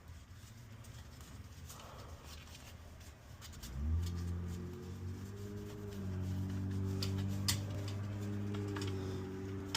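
A small electric motor or fan starts about three and a half seconds in and runs with a steady low hum, with a few light clicks over it.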